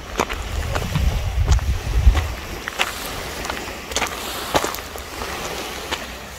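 Footsteps crunching on a pebbly dirt track, about two steps a second, with wind rumbling on the microphone for the first two seconds or so.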